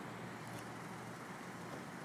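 Faint steady vehicle noise, a car or road traffic hum, with a couple of light clicks near the start.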